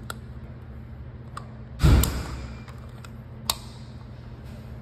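A dull thump about two seconds in, with a few light clicks before and after, over a steady low hum.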